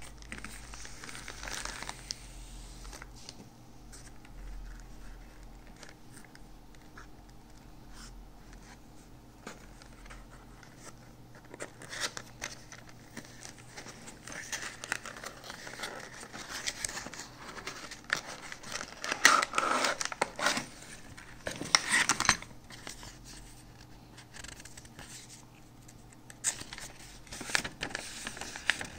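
Packaging handled by hand: a padded plastic mailer, a cardboard box and a paper instruction leaflet rustling and crinkling in uneven bursts, loudest about two-thirds of the way through.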